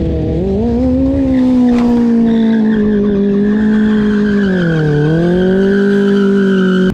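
Motorcycle engine held at high revs, rising in the first second, holding steady, then briefly dropping and picking back up about five seconds in, with a steady tyre squeal over it. The sound stops abruptly at the end.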